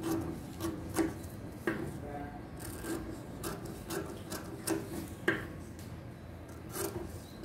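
Scissors snipping through a paper sewing pattern, a run of short cuts about every half second, with the paper rustling as the strips come apart.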